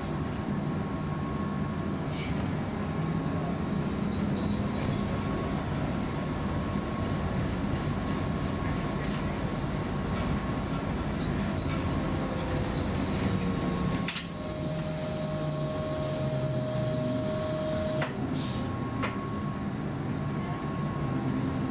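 Inside a Göteborg M31 tram running along the track: a steady rumble of wheels and running gear with a thin steady whine. About two-thirds of the way through, the sound changes: a brief dip, then a hiss and a steady tone for about four seconds.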